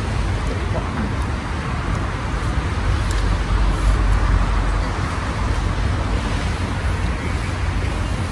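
Steady outdoor background noise with a low rumble, a little louder about three to four seconds in.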